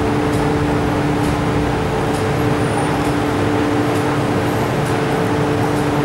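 Steady hum of an MTR Tsuen Wan Line train standing at an underground platform, two steady tones over a constant rumble, with no rise or fall of motor pitch.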